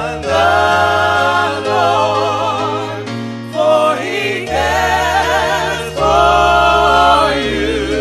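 Gospel song playing: voices singing with a wavering vibrato over held bass notes that change every second or two.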